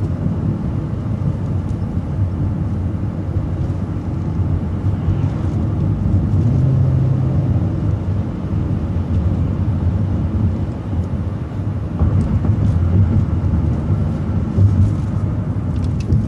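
City transit bus driving, heard from inside the bus: a steady low engine and road rumble.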